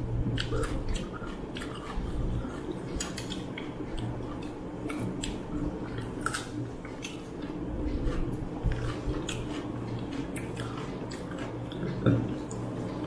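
Close-miked eating with the hands: chewing and biting, with fingers mixing rice and curry and light clinks of glass plates and bowls. A louder knock of dishes comes near the end.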